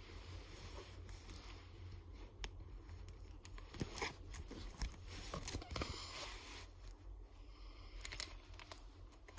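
Plastic pocket pages of a trading-card binder crinkling and rustling under a hand, with a few sharper crackles in the middle and one near the end.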